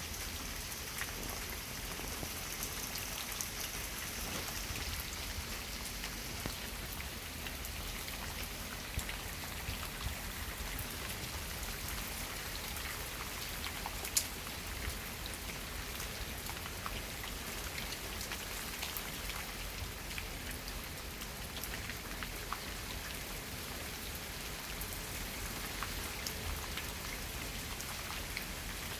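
Steady rain falling, with many scattered drops ticking close by and one sharper drip about halfway.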